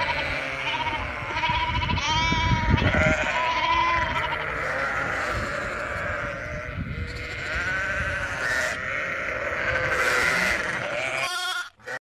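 A large flock of sheep and lambs bleating, many wavering calls overlapping one another almost without a break. The sound cuts off suddenly just before the end.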